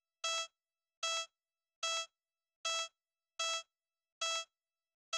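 A series of about seven identical short electronic beeps. Each is a buzzy mid-pitched tone about a quarter second long, repeating roughly every 0.8 s, with dead silence between them.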